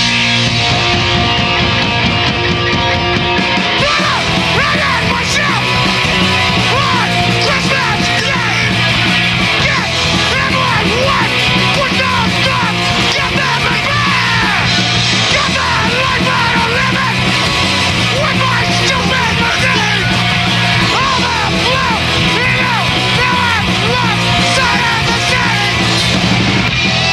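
Punk rock band playing live: drum kit and electric guitars, with a yelled lead vocal coming in about four seconds in.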